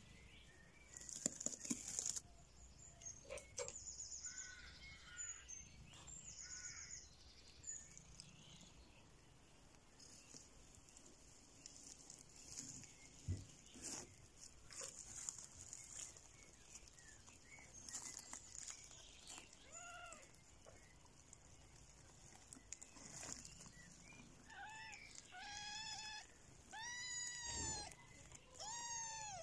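Kittens mewing: short, high, arching calls, a few scattered through and several in quick succession near the end. A brief burst of rustling comes about a second in.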